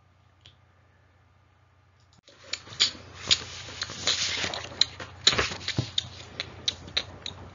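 About two seconds of near silence, then irregular rustling with many sharp clicks and taps.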